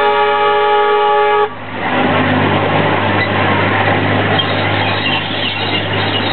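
Fowler diesel locomotive sounding its horn in one steady blast that cuts off about a second and a half in, then its engine running with a steady low drone under the noise of the train moving along the track.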